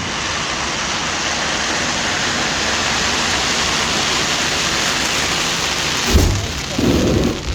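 Fireworks giving off a dense, steady rain-like crackle and hiss that swells slightly. Near the end come two low booms from shells bursting.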